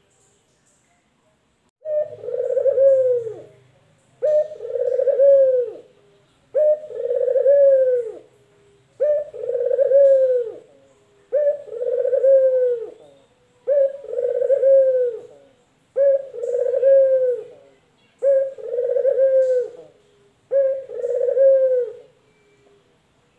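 Male collared dove (puter lokal) cooing: ten coos in a steady series about two seconds apart, each a short note followed by a longer one that falls at the end.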